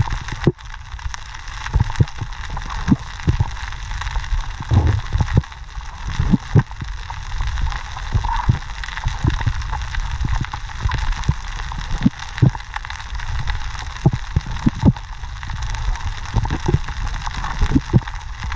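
Underwater ambience picked up through a diving camera's housing: a low rumble with irregular dull thumps over a steady hiss.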